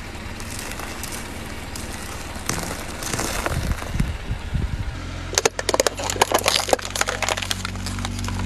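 Objects cracking and splintering as they are crushed, a dense run of sharp cracks from about five seconds in over a steady low hum.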